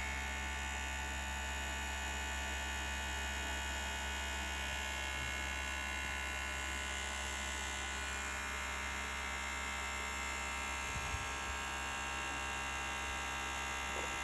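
A steady electrical hum that does not change, with a faint knock about eleven seconds in.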